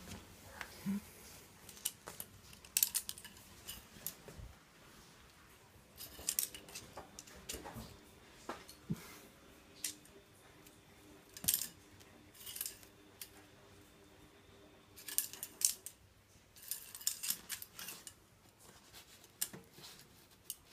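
A pen being batted around by kittens, clicking and scraping irregularly on a tiled floor, with short rustling scrapes in between.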